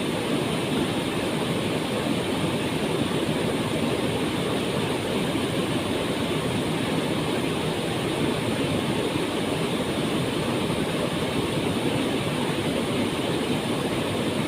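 Waterfall: a steady rush of falling water, constant and unbroken.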